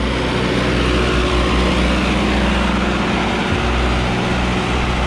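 Sonalika DI-750 III tractor's diesel engine running steadily under heavy load as it pulls a sand-laden trolley out of soft sand where it had been stuck.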